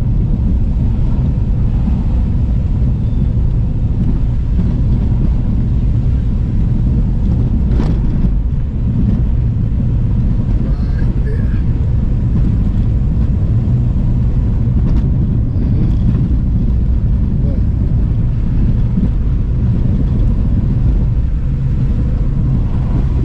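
Car being driven: a steady low rumble of engine and tyres on the road, with a single sharp knock about eight seconds in.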